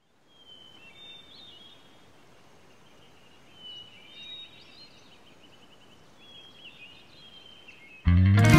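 Small birds chirping and trilling faintly over a soft outdoor hiss. Music starts abruptly and loudly about eight seconds in.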